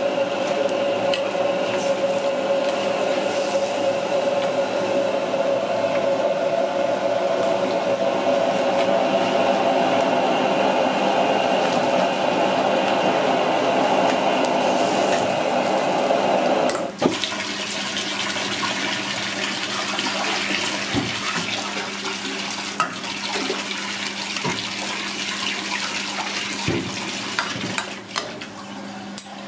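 Snake meat stirred and scooped in a wok of boiling water: a steady rush of water and steam over a hum, with a wire spider strainer and ladle clinking against the wok. The steady rush drops suddenly about 17 seconds in, leaving quieter water sounds and scattered clinks.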